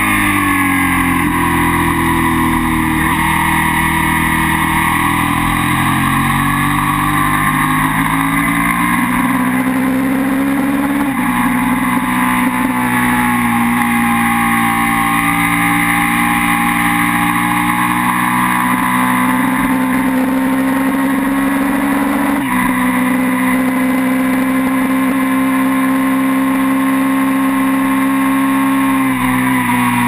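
Onboard sound of a twin-cylinder Minitwin race motorcycle at race pace, the engine note rising and falling as it is ridden hard. It steps sharply twice, about 11 and 22 seconds in, at gear changes, and drops away near the end as the throttle comes off.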